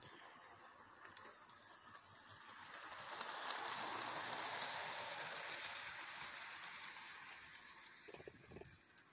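HO-scale model train running on its track: a steady rattle of wheels and motor that grows louder to a peak about four seconds in as the train passes close, then fades as it rolls away.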